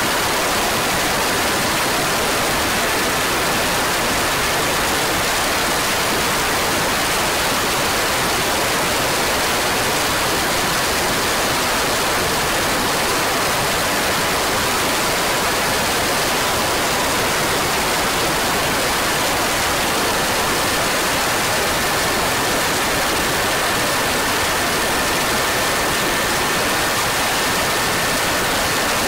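Steady rush of wind noise over a camera mounted on a racing kart at speed, with a faint high steady whine underneath.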